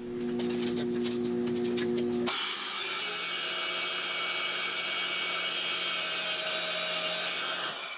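Portable bandsaw mounted on a stand cutting a flat steel bar: a steady, hissy saw run that starts abruptly about two seconds in and cuts off just before the end. Before it, a steady low hum.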